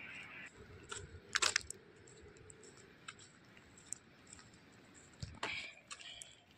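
A few sharp clicks and knocks over faint background, the loudest a quick double click about a second and a half in and another cluster near the end. They sound like handling noise from the phone as it is carried and turned while walking.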